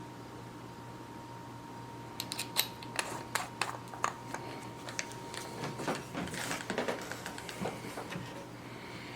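A steady faint hum, then from about two seconds in an irregular string of sharp clicks, knocks and scrapes, like small hard objects being handled.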